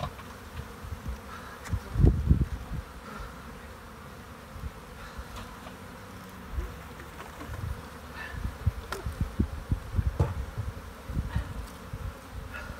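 Honeybees from a freshly shaken-in package buzzing around the open hive. Irregular low bumps and rumbles on the microphone about two seconds in and again through the second half, louder than the buzzing.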